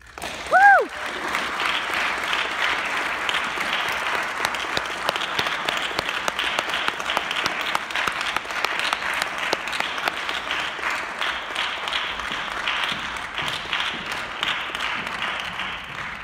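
Audience applauding, with one short, high, rising-and-falling call from the crowd about half a second in, the loudest moment. The applause begins to die away at the very end.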